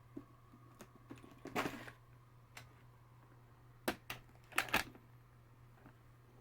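Small locksmith tools being handled: scattered clicks and taps, a brief scrape about one and a half seconds in, and a quick run of louder clicks around four to five seconds in, over a faint steady hum.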